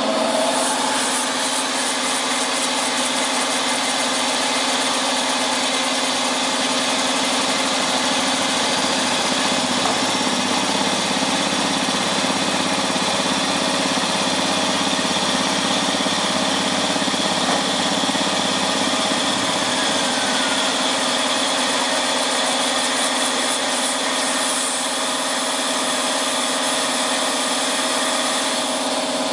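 Computer-to-plate (CTP) platesetter running: a steady mechanical hum and whine with several held tones, and a wavering low tone for a while near the middle.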